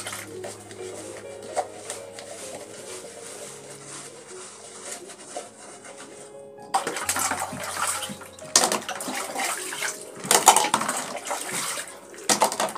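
Plastic cups being hand-washed and rinsed in a plastic basin: water swishing and splashing, with sharp knocks of plastic on plastic. The sound gets louder and busier about halfway through.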